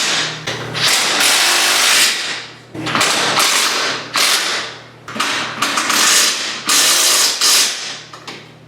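Cordless impact wrench running bolts down in about six bursts of roughly a second each, with short pauses between them.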